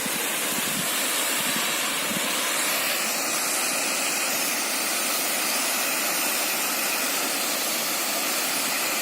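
Waterfall: water pouring and splashing into a pool, a steady rushing hiss.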